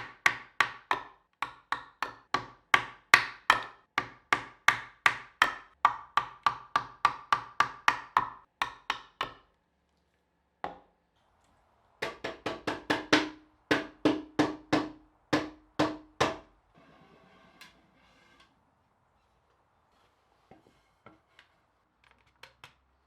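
Rapid, steady hammer blows on wood, about three a second, in two runs with a pause of a few seconds between them; each blow rings briefly with a pitch. A few faint knocks follow near the end.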